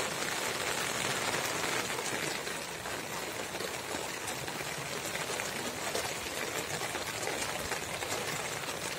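Heavy rain falling steadily on open wet ground and grass: a dense, even hiss of countless drops.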